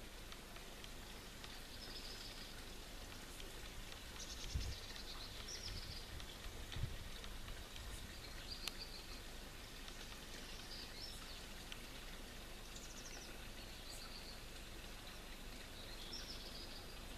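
Birds chirping and trilling in short phrases every second or two over a steady background hiss, with two brief low thumps about four and a half and seven seconds in.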